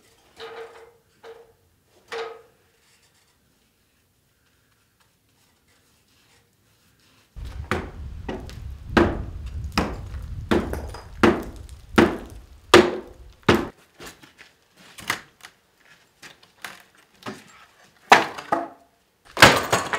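Repeated heavy knocks and thuds on wood, about one or two a second, with a low rumble under the first run of blows. A few lighter knocks come near the start.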